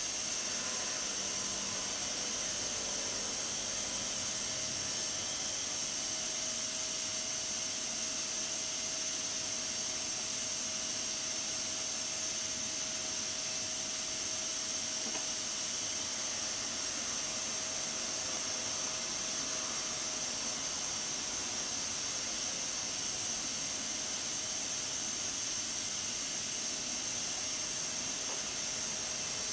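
Aluminium stovetop pressure cooker under pressure, steam hissing steadily from its weighted valve. A faint steady tone under the hiss fades out about two-thirds of the way through.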